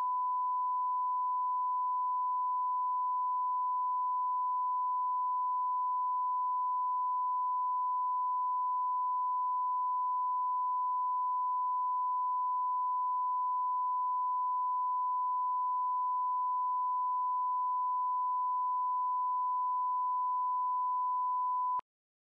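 Broadcast 1 kHz reference test tone with colour bars: one steady, unbroken pure tone at constant level. It cuts off abruptly near the end with a brief click.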